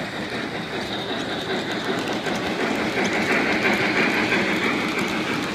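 O-gauge three-rail model passenger train rolling past on its track, the wheels clicking over the rail joints. It grows louder about three seconds in as the cars pass closest.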